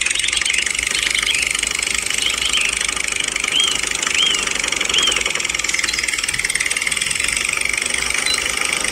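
Tractor engine idling steadily with a rapid knock, with a few short high chirps in the middle.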